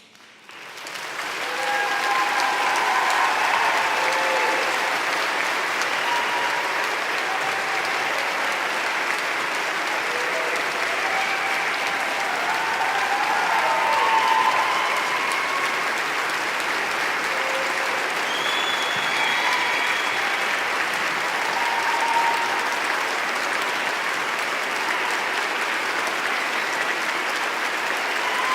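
A large crowd applauding steadily, fading in over the first two seconds, with a few voices calling out above the clapping.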